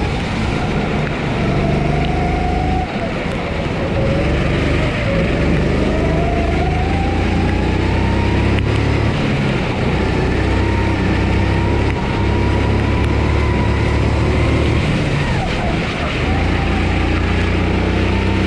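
Honda GX270 single-cylinder four-stroke engine of a Sodi SR4 kart running hard, heard from onboard, its pitch dropping as it slows for corners and climbing again as it accelerates, several times over.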